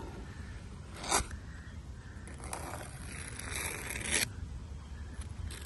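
A sharp click about a second in, then a rasping, scraping noise for about two seconds that cuts off sharply.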